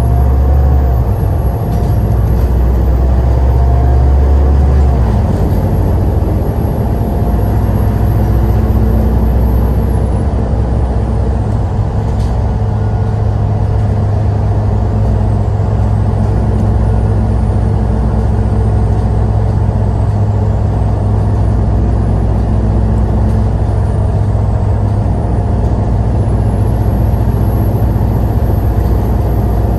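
Steady, loud low rumble of a large vehicle running, with a faint steady whine in the middle range.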